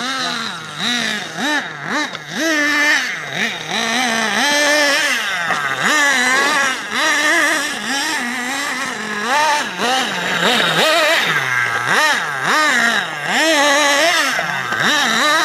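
Small two-stroke glow engine of a nitro RC buggy being driven hard, its pitch rising and falling over and over as the throttle is opened and backed off through the corners.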